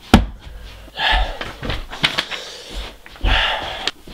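A man's heavy, breathy huffs and gasps, two long ones, with a sharp knock just after the start and a few small knocks and clicks in between.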